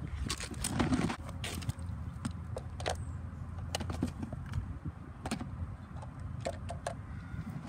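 Plastic clicks and clatter from a hand-held reacher-grabber gripping a toy mini recycling bin, lifting it to tip into a larger plastic bin and setting it back down, over a steady low rumble.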